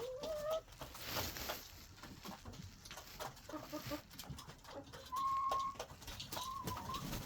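Backyard poultry flock calling: short clucks and a few drawn-out, whining hen calls, two long ones near the end, over scattered light clicks.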